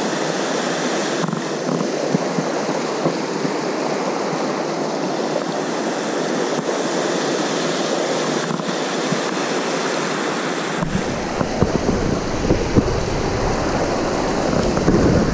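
Fast mountain-river whitewater rushing steadily over rocks in pocket water. About eleven seconds in, a low rumble joins it, like wind on the microphone.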